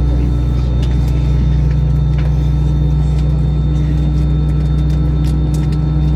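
Steady low rumble and hum inside an Airbus A320 cabin on the ground before departure, with a few faint clicks.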